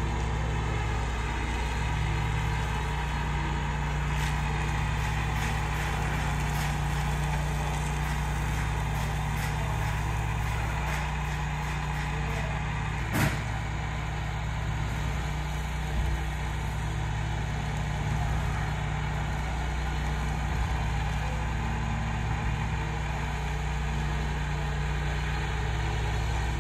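Engine idling steadily, with a short knock about 13 seconds in and a smaller one about 16 seconds in.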